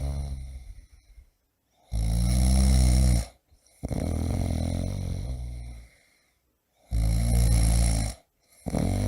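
A man snoring loudly in a slow, regular rhythm: two strong, low, rattling snores about five seconds apart, each followed by a longer breath that fades away, with brief silences between breaths.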